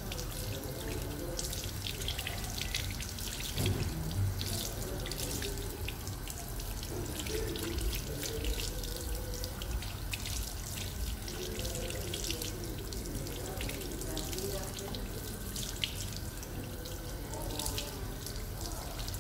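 Water from a sink's handheld spray head running over a freshly shaved scalp and splashing into the basin as the head is rinsed.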